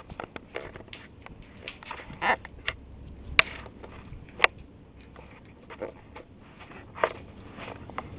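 Poker chips clicking against each other as they are handled and stacked: scattered light clicks, with two sharper clacks about a second apart midway through.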